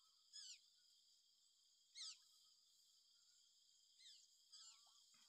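Faint, short, high-pitched calls that fall quickly in pitch, four of them spread across a few seconds, typical of a bird calling, over a steady high insect drone.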